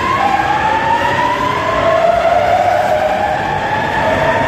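Alstom metro train pulling away, its traction motors giving a rising, siren-like whine over wheel-on-rail rumble; the whine drops back in pitch once about two seconds in and climbs again as the train gathers speed.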